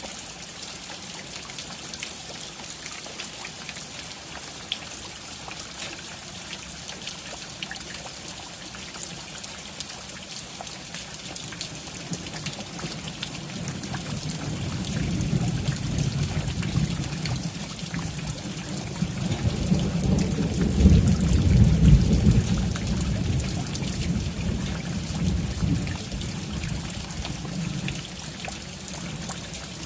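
Steady rain with fine pattering drops, and a long roll of thunder that builds about halfway through, peaks loudest a little later, then rumbles away.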